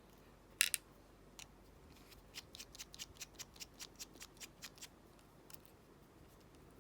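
Small metal clicks from the parts of a Lockwood padlock being handled as it is taken apart: two sharp clicks under a second in, then a run of light, evenly spaced clicks, several a second, for about three seconds, and a sharp click at the end.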